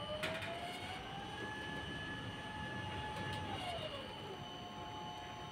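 Construction manlift hoist whining as it runs: the motor's pitch rises as the cage speeds up, holds steady, then drops about four seconds in as it slows, over a rumble of rattling machinery.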